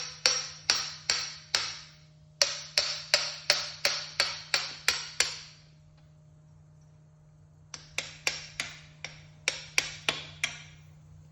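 Hammer blows driving a steel collar down onto a Brockhouse Brave motor scooter's front fork tube, each strike ringing briefly. The blows come steadily at about two to three a second in three runs, with short pauses about two seconds in and around six to seven seconds in.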